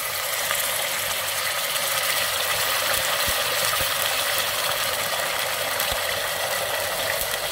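Steady sizzle of meatballs frying in shallow oil in a pan, with homemade tomato sauce poured from a bottle into hot oil and onion in a pot and stirred with a wooden spoon.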